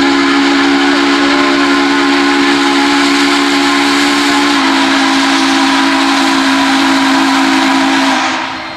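Union Pacific 844 steam locomotive's whistle blowing one long, loud blast, a steady low chord over the hiss of steam. The chord thins a little about halfway, and the whistle cuts off near the end.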